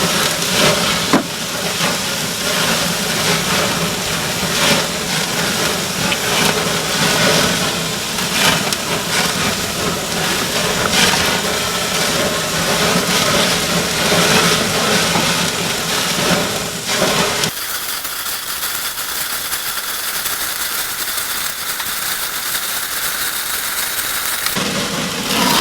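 Pork chops sizzling over flames on a grill: a steady hiss with crackles and pops. About two-thirds through it cuts abruptly to a thinner, higher hiss.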